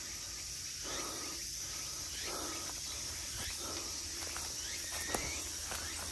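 Footsteps of a hiker climbing a wooded trail, soft irregular steps about once a second with an occasional sharp tick, over a steady high hiss.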